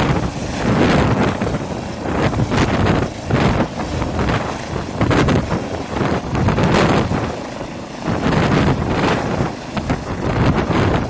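Twin-engine light helicopter with a fenestron tail rotor lifting off into a low hover: rotor and turbine noise, with the rotor downwash buffeting the microphone in uneven gusts.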